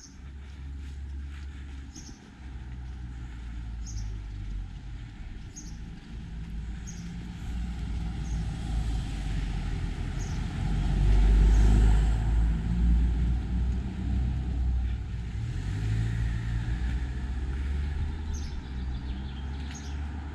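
A motor vehicle running on the road, a low rumble that grows louder to a peak about halfway through and then eases off as it passes.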